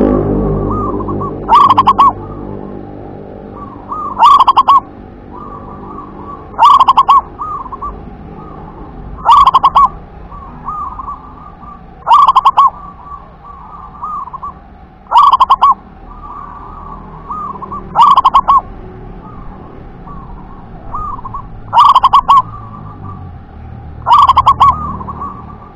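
Zebra dove (perkutut) cooing its "wer-ke-te-pek" song: a loud phrase of rapid staccato notes repeated about every two and a half to three seconds, about ten times, with softer cooing notes between the phrases.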